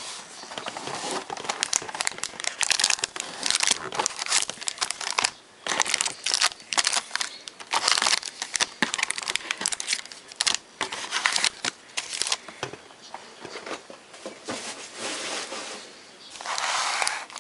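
Plastic packaging crinkling and tearing as a sealed trading-card box and its pack are opened by hand, a dense run of irregular crackles with a longer rip near the end.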